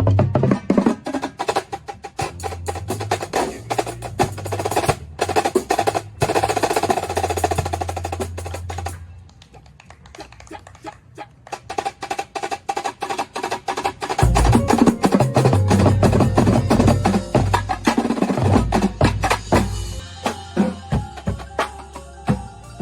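Drum corps drumline, snare drums over pitched bass drums, playing a fast, loud ensemble exercise. About nine seconds in it drops to a quieter passage, then comes back in loud about five seconds later.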